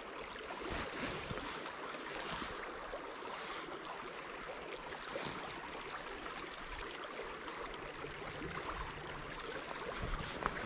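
Steady outdoor hiss of wind and gently moving river water, with a few faint rustles and clicks from gloved hands handling fishing line.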